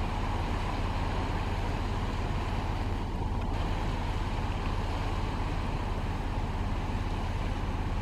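Steady outdoor background noise: a low rumble with a hiss that does not change, and no distinct bird calls.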